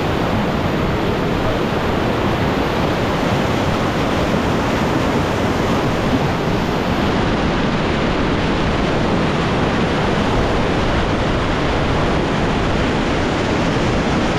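Whitewater of a river rapid rushing steadily and loudly.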